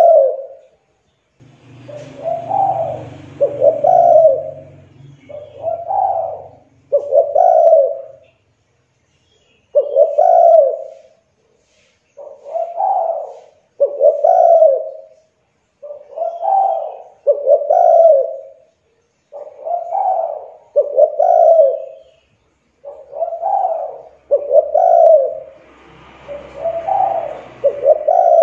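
Spotted dove (tekukur) singing its cooing song: phrases of coos come again and again, mostly in pairs about a second apart with short gaps between pairs.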